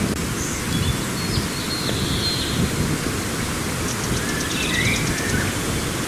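Wind buffeting the microphone with a steady low rumble, over wild birds singing: short chirps and trills, with a rapid series of notes near the end.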